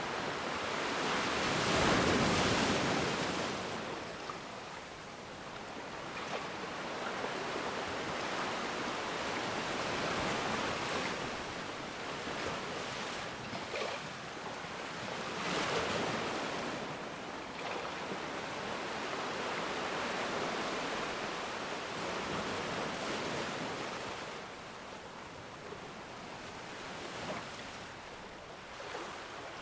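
Ocean waves breaking and washing up the shore in slow, irregular swells, the biggest surge about two seconds in and another around the middle.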